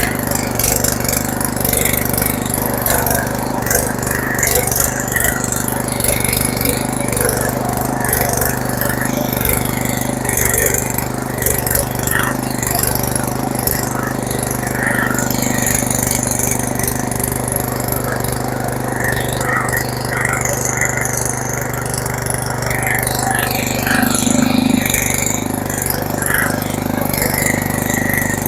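An engine running steadily at a constant speed, with a change in its tone about three-quarters of the way through.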